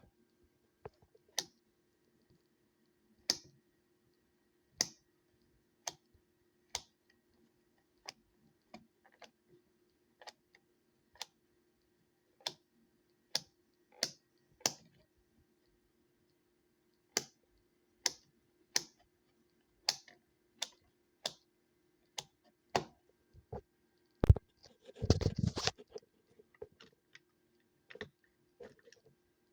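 Sharp single clicks at irregular spacing, roughly one a second, with a louder knock and a brief burst of rattling clicks about 24 seconds in, over a faint steady hum.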